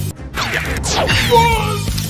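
Cartoon sound effects over background music: the music drops out briefly, a swoosh falls in pitch, and the tune comes back about halfway through.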